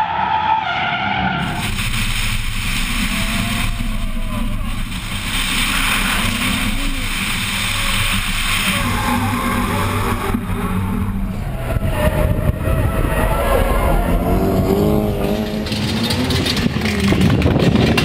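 Drift cars sliding through corners, engines revving hard and tyres squealing and skidding, over several short shots cut together.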